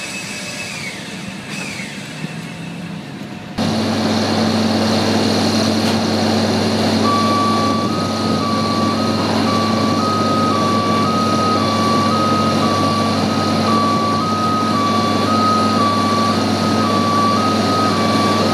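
Airport cargo high loader (scissor-lift main-deck loader) at work: a steady machine drone that steps up suddenly about three and a half seconds in, with an alternating high-low two-tone warning beep starting about seven seconds in and repeating roughly once a second.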